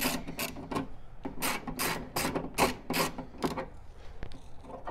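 Socket ratchet backing out the 10 mm bolts that hold the factory door tweeter bracket: a run of about ten short rasping ratchet strokes, two to three a second, that stops about three and a half seconds in.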